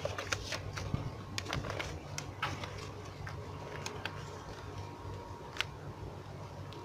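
Handling noise from a handheld camera being moved: scattered light clicks and taps, most of them in the first few seconds, over a low steady hum.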